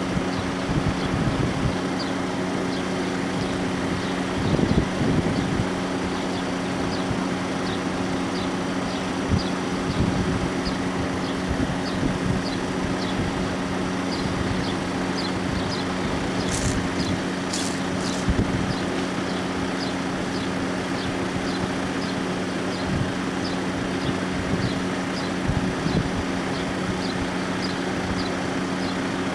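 Level-crossing warning bell ringing on and on while the barriers are down, with a steady ring and a light regular tick about one and a half times a second. Wind gusts buffet the microphone now and then.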